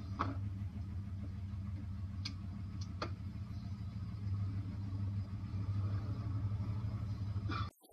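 Vehicle engine running with a steady low hum, heard from inside the cab, with a few faint clicks over it. The sound cuts off suddenly near the end.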